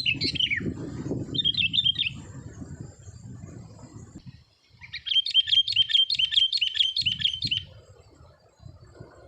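Caged decoy songbird singing in three phrases of rapid, repeated high notes, the longest about five seconds in, over a low rumbling noise.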